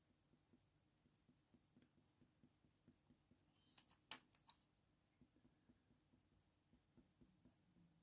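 Faint, quick scratching of a coloured pencil laying colour onto hot-press watercolour paper in short strokes, with a few sharp clicks about halfway through.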